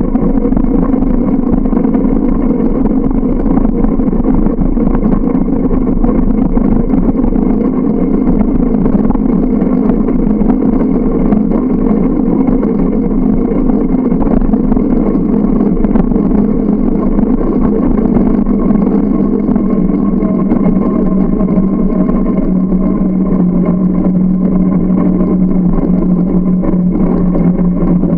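A bike in motion: a loud, steady running hum with a noisy rush over it, its pitch drifting slowly lower through the second half as the ride slows.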